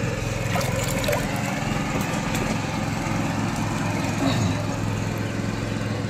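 A small engine running steadily with a low drone, with light splashes from hands working in shallow water in the first couple of seconds.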